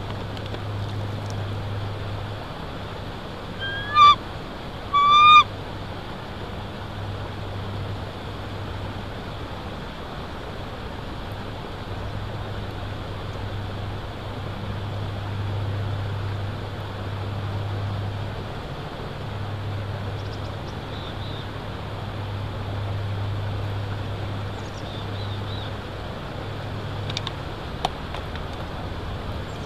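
Bald eagle giving two short, high-pitched calls about a second apart, about four seconds in, over a steady hiss and low hum.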